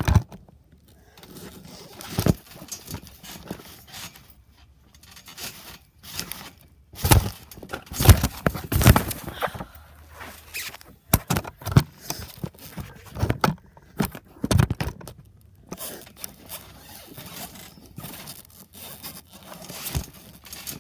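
Someone jumping on a trampoline with a handheld phone: irregular thumps and scraping, heaviest around the middle, with cloth rubbing against the microphone.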